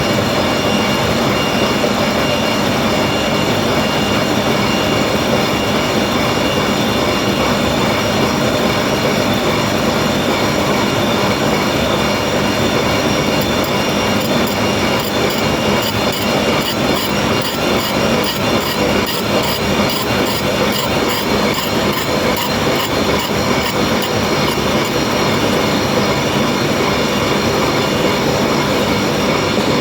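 Gear grinding machine running: a steady metallic grinding with several held whining tones. About halfway through, a fast, evenly repeating high ticking joins in for several seconds.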